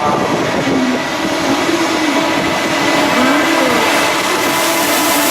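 An electric train running past: steady loud rail and running noise with a wavering motor hum.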